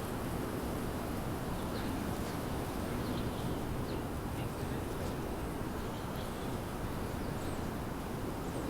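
Outdoor city ambience: a steady low hum of distant traffic, with scattered short faint bird chirps over it.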